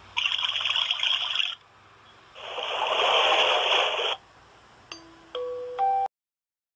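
A projection alarm clock's small speaker stepping through its built-in sounds: a short hissing nature-sound clip, then a louder hiss like running water that swells and stops, then a few electronic melody beeps that cut off abruptly about six seconds in.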